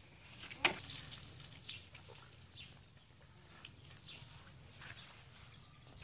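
Water splashing as it is thrown from a dipper onto a cow being bathed: a few short splashes, the loudest about half a second in, then smaller ones.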